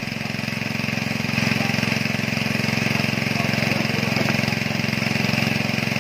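A small engine running steadily at idle with a fast, even pulse. A faint click comes about four seconds in.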